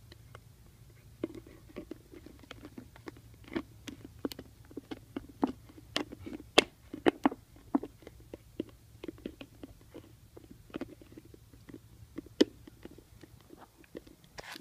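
A puppy licking and chewing inside a plastic peanut butter jar: a quick, irregular run of wet smacks and clicks from its tongue and jaws against the jar.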